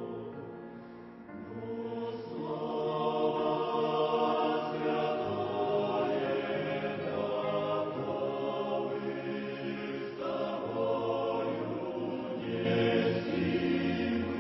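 Choir singing a slow hymn in long held chords. The singing dips briefly near the start and swells back about two seconds in.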